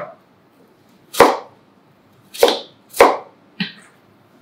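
Chef's knife cutting peeled apple into quarters on a cutting board: four sharp knocks of the blade meeting the board, the first alone and the other three in quicker succession.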